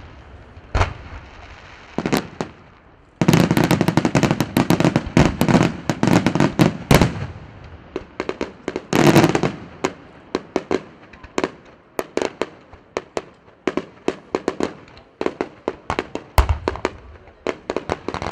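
Bruscella Fireworks aerial fireworks display: single sharp bangs, then a dense run of rapid crackling a few seconds in, a loud burst, and a stream of quick sharp cracks, several a second, to the end.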